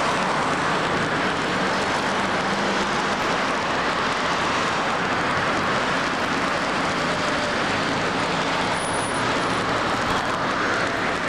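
Steady outdoor street noise: a continuous, even rushing sound with no distinct events, of the kind made by traffic running.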